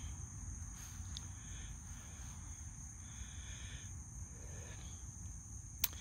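Insects singing in a steady, high-pitched chorus, with a low rumble underneath and a single sharp click near the end.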